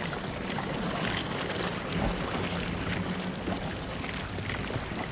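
Steady outdoor noise of wind and water around a small fishing boat, with faint scattered ticks.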